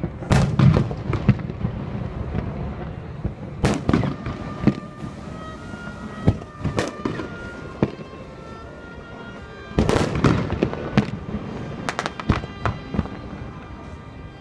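Fireworks bursting in groups of sharp bangs, with a dense volley from about ten to thirteen seconds in. Music plays underneath, with a melody coming in about five seconds in.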